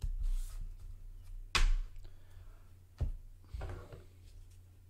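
A few short knocks and rustles of trading cards and packs being handled and set down on a desk, the loudest about a second and a half in, over a steady low electrical hum.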